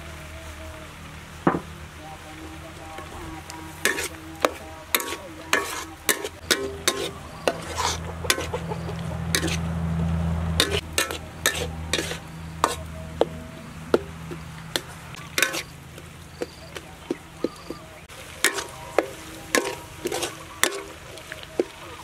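Metal spatula scraping and knocking against a metal wok as a thick chopped mixture is stir-fried, with a low sizzle underneath. Sharp irregular clacks come every second or so, and a low rumble swells midway and fades again.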